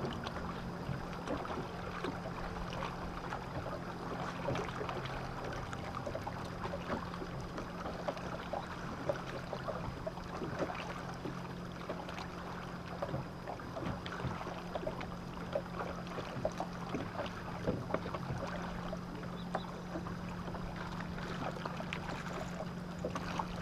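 Bass boat's electric bow trolling motor humming steadily, with scattered light clicks and water slaps at the hull.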